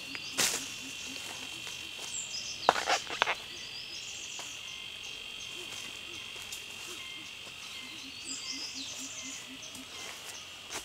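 Steady, high-pitched drone of insects, with a few sharp crackles of footsteps on dry leaf litter near the start and about three seconds in.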